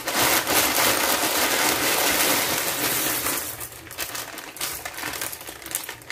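Dry fusilli pasta pouring out of a plastic bag into a pot of boiling water: a dense rattle with the bag crinkling, easing off about three and a half seconds in to lighter rustles and clicks as the last pieces are shaken out.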